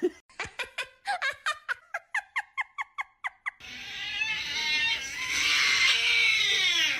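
Meme sound-effect clips: about a dozen short animal-like calls at roughly four a second, then a noisy squeal that falls steadily in pitch and cuts off near the end.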